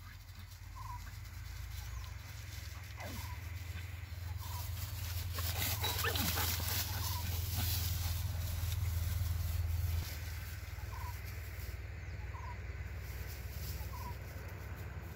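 Low wind rumble on the microphone with crackly rustling of dry straw stubble, loudest in the middle and easing off about two-thirds of the way through. Short faint chirps come every second or two.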